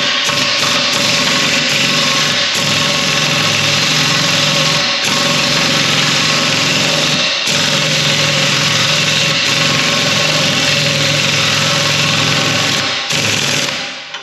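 Air impact wrench hammering on the 1-1/16 inch blade-bolt nut of a rotary cutter, trying to back the seized nut off. It runs loud and continuous with a few short breaks where the trigger is let off and squeezed again, then stops near the end. The nut takes a long run of hammering to break loose.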